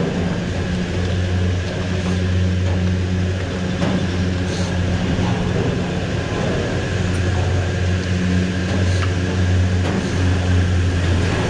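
Machinery running with a steady low hum and a fainter higher hum above it, with a few faint clicks.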